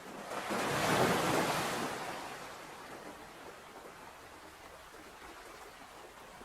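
Ocean waves: a wave breaks and washes in, swelling to its loudest about a second in, then fading into a steady hiss of surf.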